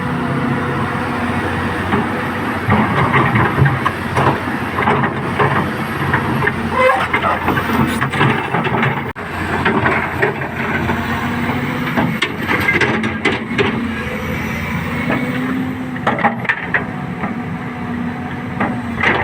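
Backhoe loader's engine running at a steady idle, with irregular metal knocks and clanks over it.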